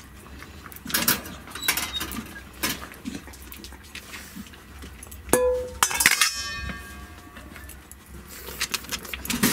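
Stainless steel dog food bowls clanking and clinking as they are picked up and stacked, with one sharp metallic knock about five seconds in that rings on for a couple of seconds.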